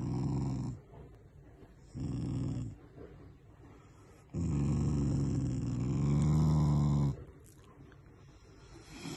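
Black Shiba Inu growling in three bouts while being petted: two short growls, then a long one of about three seconds starting about four seconds in. It is an affectionate, playful growl, not a sign of anger.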